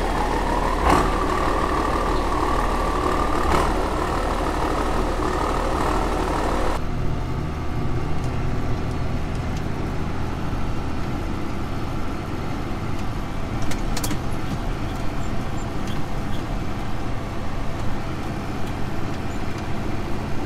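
Diesel engine of farm machinery running steadily. A high whine sits over it for the first several seconds, then stops abruptly, leaving a steady low engine drone.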